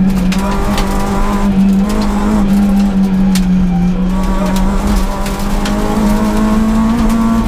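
Peugeot 106 S16 rally car's 1.6-litre four-cylinder engine held at high revs, heard from inside the cabin. The pitch sags slightly in the middle and climbs again near the end, with a few short sharp knocks over it.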